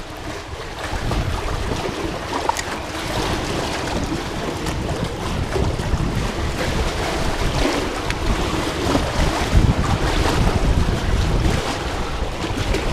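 Fast-flowing current rushing and swirling around a wader's legs, a steady loud wash with a low rumble buffeting the microphone.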